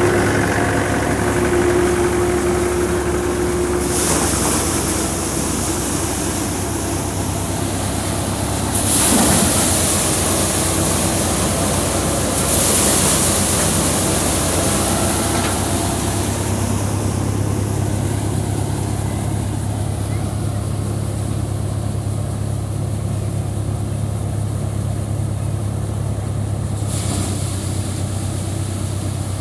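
Tractor engine running steadily to drive a paddy thresher, with surges of rustling hiss about 4, 9 and 13 seconds in as bundles of rice stalks go into the threshing drum.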